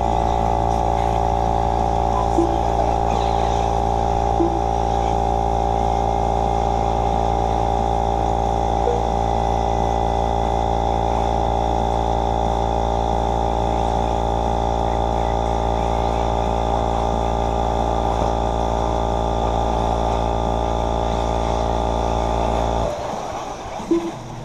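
Loud steady electrical hum and buzz, a stack of unchanging tones that cuts off abruptly about a second and a half before the end, with a few faint clicks over it.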